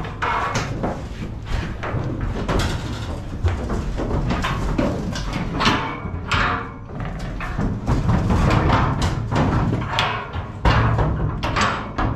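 Repeated metal clanks, bangs and scraping inside a steel cattle-trailer compartment as its internal sliding gate is worked and latched.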